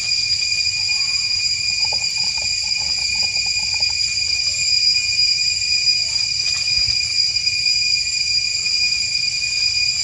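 A steady, high-pitched insect chorus drones without a break in the forest. A brief run of quick, repeated chirps from some animal comes in about two seconds in and stops near four seconds.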